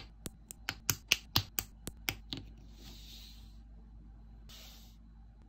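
Rapid series of sharp plastic clicks as snap-fit parts of a Blokees Transformers Bumblebee model kit are pressed together, about a dozen in the first two and a half seconds. Two short hissing swishes follow.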